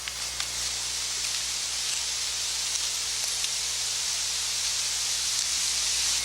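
A steady, even hiss that swells slightly and cuts off suddenly near the end, with a few faint clicks.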